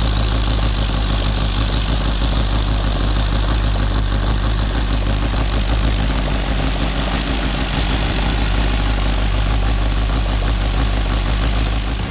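OS FR5 300 five-cylinder four-stroke glow radial model engine running steadily at a low, even speed through a ring exhaust system. The engine note holds steady throughout.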